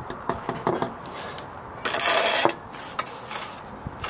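Bricklaying trowel working mortar on the lintel and against the bricks: a run of short clicks and scrapes, with a louder scrape lasting about half a second near the middle.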